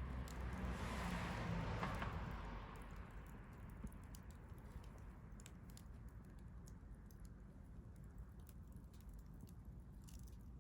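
Wood fire crackling in a stainless steel fire grill, with scattered sharp pops and ticks. A louder rushing hiss swells and fades away over the first three seconds.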